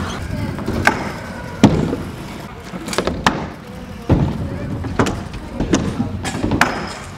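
Skatepark riding: wheels rolling with a low rumble, broken by about eight hard clacks and thuds as kick scooter and skateboard decks and wheels strike the ramps and concrete.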